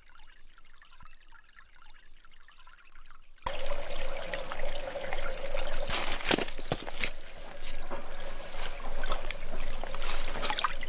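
Shallow stream running over stones, heard close up. After a quieter first few seconds it cuts in suddenly and loudly about a third of the way in, a steady rush of water with many small splashes and gurgles.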